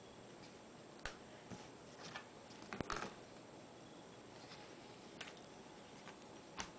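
Handling noise from a plastic netbook being closed and turned over: a few faint clicks and knocks, the loudest about three seconds in.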